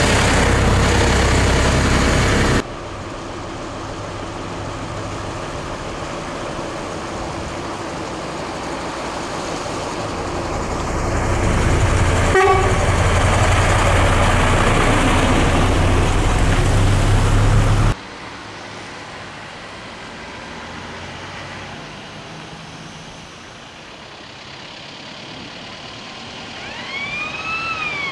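Vintage Magirus-Deutz trucks' diesel engines running as the trucks drive past one after another. Near the end a horn sounds with a pitch that rises and then falls.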